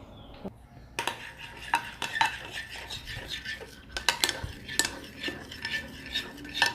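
A utensil stirring slime in a bowl, clinking and scraping against the sides in quick irregular strokes from about a second in, as the Ariel detergent activator is mixed into the glue.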